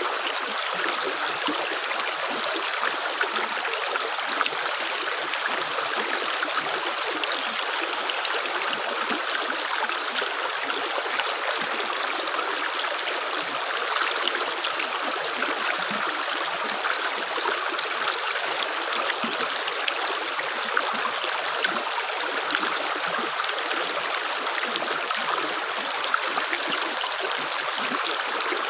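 Running water: a steady, unbroken trickling and splashing flow, like a small stream.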